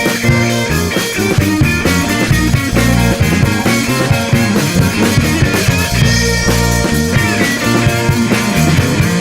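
Live rock band playing an instrumental passage: electric guitar, bass and drum kit, with a steady beat.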